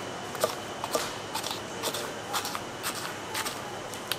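Knife cutting food on a cutting board: a string of sharp, irregular knocks, about two or three a second.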